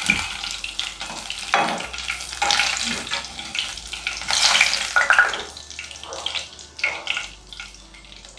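Chicken pakoras deep-frying in hot oil in a pan, the oil sizzling steadily, with a metal slotted spoon stirring and lifting the cooked pieces out of the oil.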